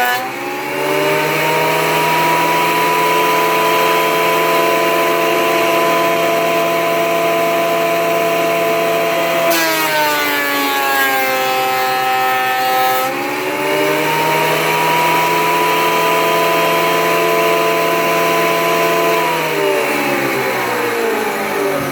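Porter-Cable portable planer running loud and steady. About ten seconds in, its motor pitch sags and a rough cutting noise joins as a board feeds through the cutterhead under load, then the pitch climbs back once the board clears. The pitch sags again near the end.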